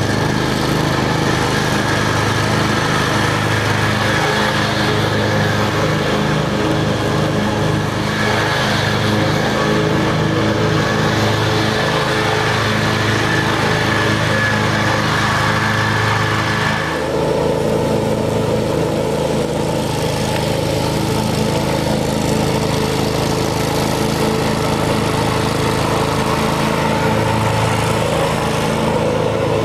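Scag 52 commercial lawn mower's engine running steadily. About seventeen seconds in the sound changes: the higher hiss drops away and a lower drone comes forward.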